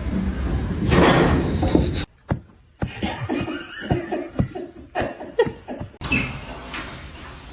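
A person laughing, in short repeated outbursts.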